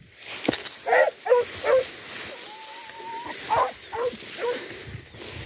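Hunting dogs yelping in short cries, two or three at a time, with a thin drawn-out whine a little past halfway.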